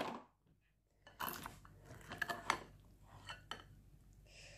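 Spatula scraping and tapping against a glass baking dish while scooping out a soft, cheesy vegetable bake: a few faint scrapes and clicks in two short clusters.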